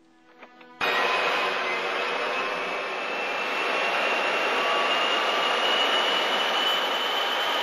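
Loud engine roar that starts suddenly under a second in and holds steady, with a thin high whine slowly rising in pitch over it.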